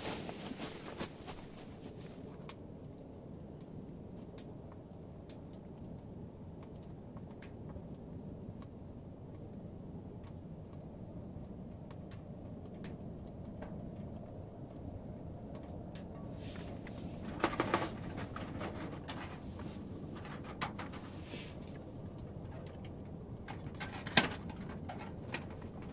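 Wood fire burning in a small sheet-metal tent stove, a steady low rush with faint crackles. A few metal knocks come around two thirds of the way in, and one sharp metal clink near the end as the stovepipe is handled.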